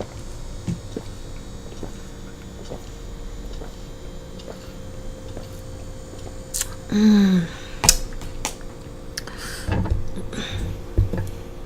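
Close-up eating sounds: small clicks of a utensil and mouth noises from chewing pasta. About seven seconds in there is one short vocal sound that falls in pitch, and a few sharper clicks follow near the end.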